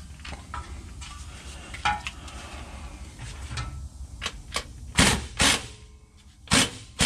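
Metal clinks of a socket and tools being handled, then short bursts of an impact wrench driving in the parking brake drum's center bolt on the transmission tail shaft, two about five seconds in and more near the end. The impact's sound changes as the bolt runs down and tightens.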